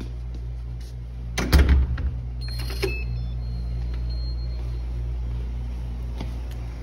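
A steady low hum, with a loud knock or clatter about a second and a half in and a few faint short high beeps soon after.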